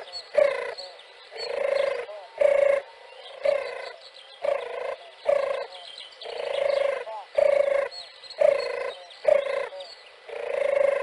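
Turtle dove cooing: a long run of short, repeated coos, one or two a second, with a few longer drawn-out coos among them.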